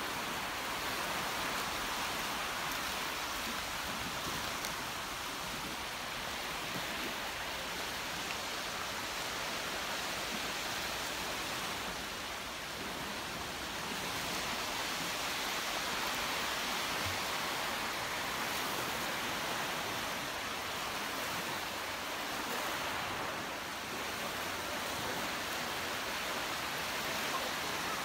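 Small waves breaking and washing up a cobble beach: a steady rushing hiss that swells and eases, dipping twice.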